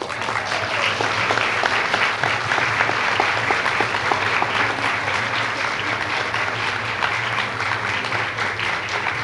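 Audience applauding steadily: many hands clapping in a dense patter.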